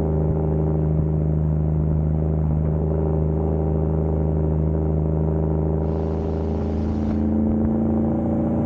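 Peterbilt semi truck's diesel engine running steadily while driving, a constant droning hum.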